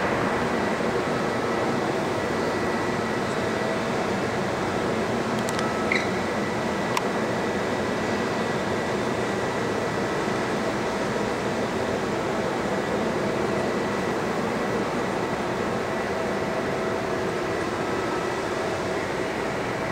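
Steady ventilation hum filling a large hangar hall, with a couple of faint clicks about six and seven seconds in.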